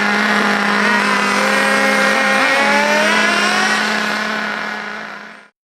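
Nitro engine of a 1/8-scale HSP Camper RC buggy running at half to three-quarters throttle during its break-in, a steady high engine note that rises and falls a little in pitch. It fades out near the end and stops.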